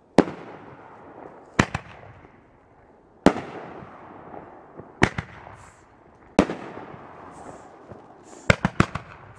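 Aerial shells from a Phantom X-9 Panoramic Finale firework cake bursting overhead: a sharp bang every second or two, each followed by a fading hiss, then a rapid run of about four bangs near the end.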